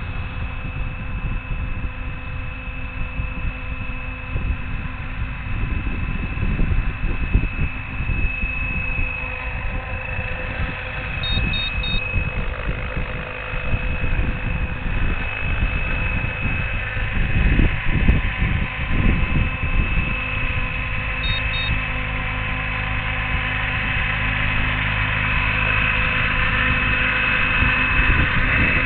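Electric RC scale helicopter with a Scorpion electric motor and 800 mm main blades, flying: a steady high motor whine over the low rumble of the rotor, growing louder as it comes in close to hover.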